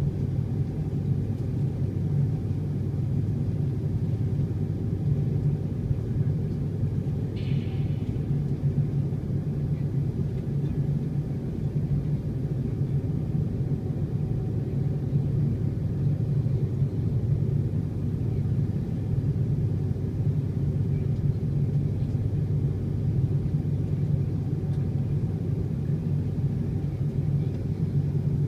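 Steady low rumble and hum of an Airbus A330-300's Rolls-Royce Trent 700 engines at idle, heard from inside the passenger cabin, with the aircraft waiting before its takeoff roll. The engine sound does not rise; a brief faint high sound comes about seven seconds in.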